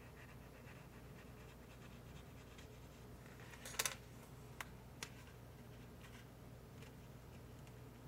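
Faint handling sounds of a plastic candy-kit mold tray and a wooden toothpick on a table: light scratching, then a quick cluster of sharp clicks a little under four seconds in and two single clicks about a second later.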